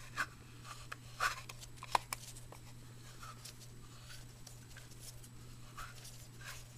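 Small two-stroke engine with its crank cover off, turned over by hand: faint, irregular scraping and clicking from a piston scuffed against its cylinder wall after running on gas without oil.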